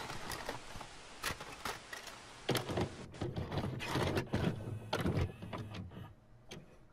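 A VCR's tape mechanism clunking and whirring as a cassette is loaded and put into play. It is a run of clicks with heavier thunks in the middle, over a hiss that fades during the first couple of seconds.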